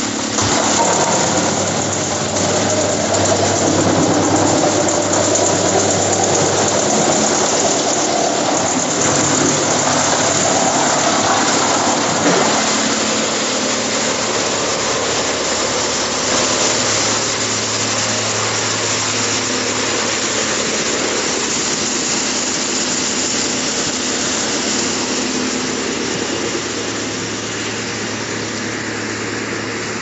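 Drum wood chipper running and chipping logs: a loud, dense, steady machine din with the rough crunch of wood being cut, busiest over the first dozen seconds with a sharp knock about twelve seconds in. It then settles to a more even running noise of the chipper and its chip conveyor.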